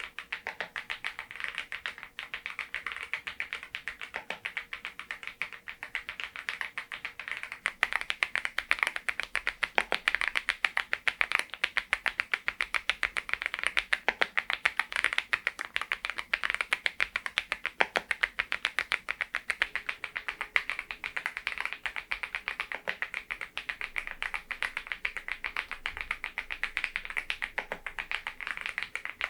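Typing on a Geekstar GKG87R tenkeyless mechanical keyboard fitted with Balhae Blue tactile switches: a steady, rapid stream of key clacks, louder from about eight seconds in.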